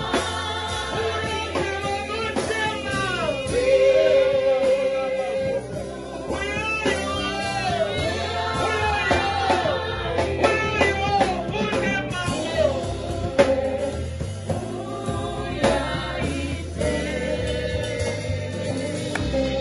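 A live gospel hymn in Shona. A male lead singer and women backing singers sing through microphones over a drum kit.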